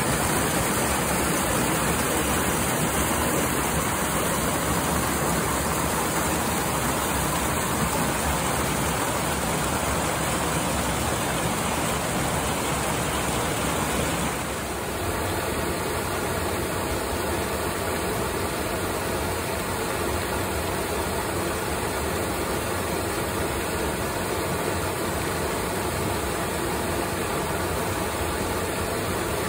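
Steady rush of stream water tumbling over rocks in a small cascade. About halfway through it changes to a slightly quieter flow of water running over rocks.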